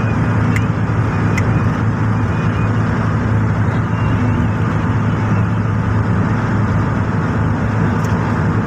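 Steady engine and tyre noise of a car cruising on a highway, heard from inside the cabin as a low hum, with a few faint clicks in the first second and a half and near the end.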